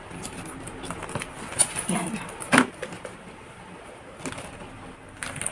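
Metal swivel clasps and strap hardware of a handbag clinking and clicking as the strap is hooked on, with a few sharp clicks, the loudest about two and a half seconds in.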